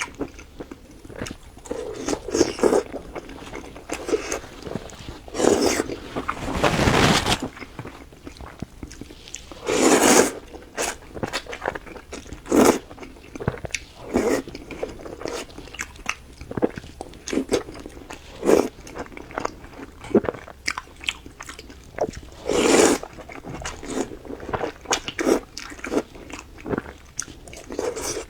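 Close-miked eating: irregular bites and chewing of curry, fish and rice, with wet mouth clicks. There are a few longer, louder stretches, about a quarter of the way in, a third of the way in and near the end.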